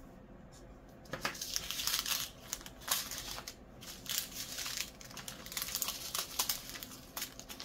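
Small plastic bags of diamond-painting drills crinkling and rustling as they are handled and set down, starting about a second in.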